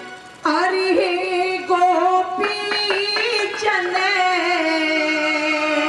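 A woman singing a Haryanvi ragini folk song into a microphone over a stage PA. She comes in about half a second in and sustains long notes with ornamented, wavering turns.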